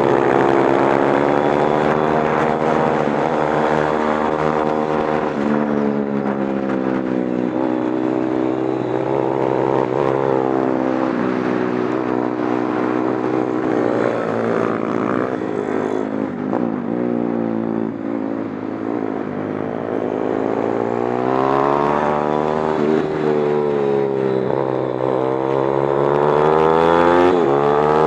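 Pit bike's small engine heard onboard while racing, its pitch climbing under throttle and dropping back again and again as the rider accelerates, shifts and slows for corners.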